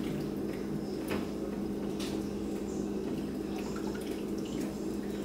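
Boil liquid dripping and splashing as boiled corn and crabs are lifted from a roasting pan of cooking liquid into an enamel stock pot, with a few faint knocks, over a steady low hum.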